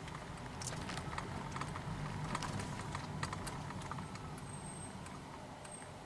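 Irregular clicks and light knocks inside a car cabin over a low road rumble, as a Honda Freed Hybrid rolls over and away from a railway level crossing. The clicks come thickest in the first three seconds and die away, and the rumble fades toward the end.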